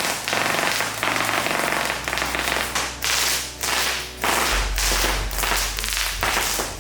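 High-powered airsoft gun firing in repeated bursts of rapid shots, with the BBs striking an umbrella.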